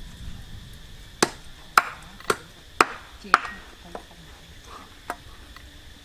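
Knife chopping on a wooden cutting board: five sharp strokes about half a second apart, then a few fainter ones.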